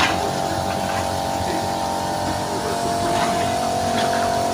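Small electric motor of an automated car washing machine running with a steady whine of several held tones over a low hum.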